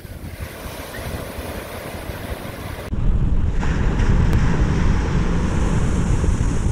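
Ocean surf washing onto the beach. About three seconds in, heavy wind buffeting the microphone adds a loud low rumble over the surf.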